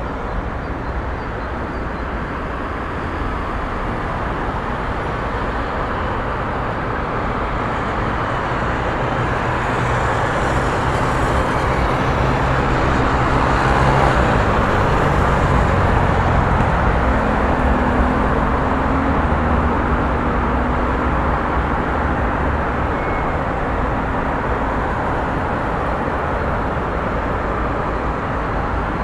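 City street traffic: a steady wash of car and truck engines and tyre noise, swelling as a heavier vehicle passes about halfway through, then easing off.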